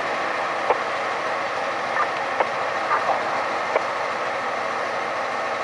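Fire engine's diesel engine idling steadily in the station bay, with a few short light clicks over it.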